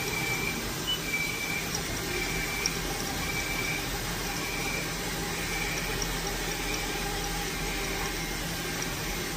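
Coolant spraying and splashing inside the enclosure of a 2020 Haas DM2 CNC drill/mill, with its coolant pump running: a steady wash of liquid noise with a faint high tone pulsing a little under once a second.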